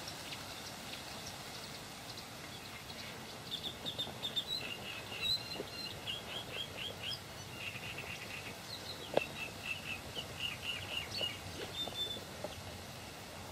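A small bird singing in quick runs of short, high chirps, starting a few seconds in and going on until near the end, over a faint steady outdoor hiss. A single sharp click about nine seconds in.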